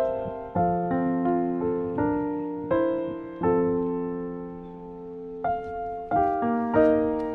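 Slow background piano music: notes and chords struck one after another, each left to ring and fade.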